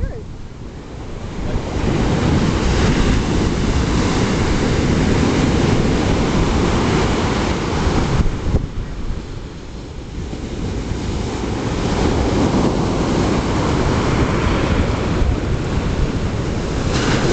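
Ocean surf breaking and washing up a sandy beach in a steady loud rush. The rush eases briefly about eight seconds in, then swells again.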